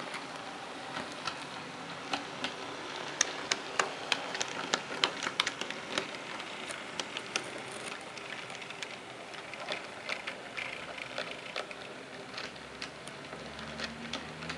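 HO scale model train rolling along the track: a steady hiss of motor and wheels with many sharp, irregular clicks of the wheels on the rails, thickest a few seconds in. A low hum joins near the end.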